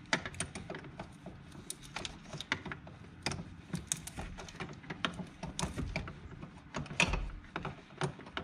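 Irregular clicks, taps and light knocks of hand work on the brake line fittings at a car's brake master cylinder, several a second, with a louder knock about seven seconds in.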